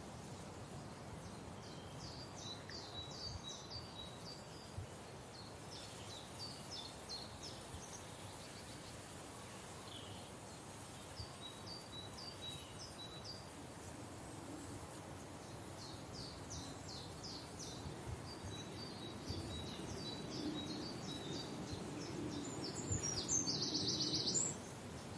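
Small birds chirping in repeated quick series of high notes over a steady outdoor background hiss, with a louder, dense burst of high chirping near the end.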